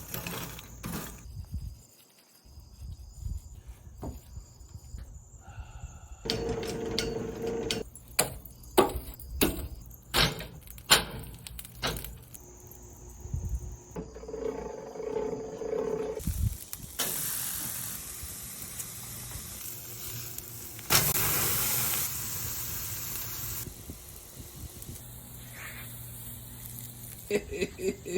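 Steaks sizzling on a grill, in a string of abrupt cuts, with a run of sharp clicks and knocks about a third of the way through.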